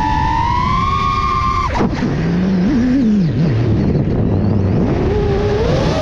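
Small FPV quadcopter's electric motors whining, the pitch dropping sharply about two seconds in as the throttle is cut, wavering low, then rising again toward the end as power comes back. Wind rumbles on the microphone throughout.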